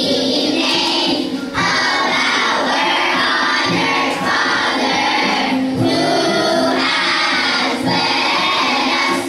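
Church choir of mixed voices singing a hymn to instrumental accompaniment, in phrases with short breaks between them.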